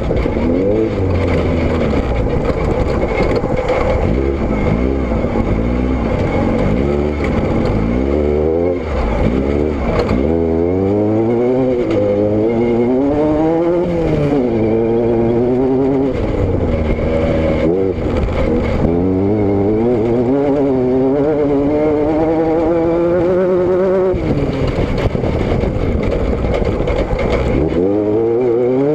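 A vehicle engine running under way, its pitch rising and falling again and again as it speeds up and slows down, with steady road and wind noise underneath.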